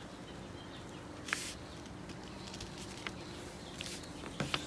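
Sheet of printer paper being handled and folded: a few short crinkles and soft crackles as the corners are folded up and creased, the clearest about a second in and just before the end.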